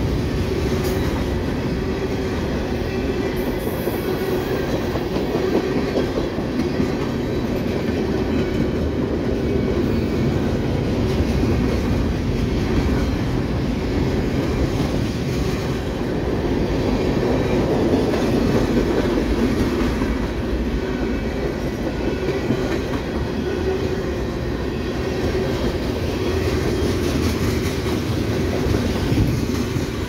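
Freight cars of a mixed manifest train, covered hoppers and tank cars, rolling steadily past: a continuous, even noise of steel wheels on the rails.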